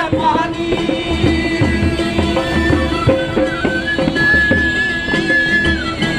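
Street folk band playing: acoustic guitar and ukulele strummed over a steady tambourine beat. About four seconds in, a bamboo flute holds one long high note for a second and a half.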